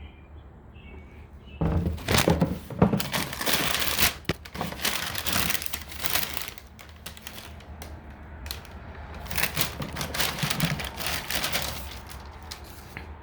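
Sneaker-box packaging crinkling and rustling in irregular bursts as a pair of shoes is unwrapped, starting about one and a half seconds in, loudest in the first few seconds and again around ten seconds.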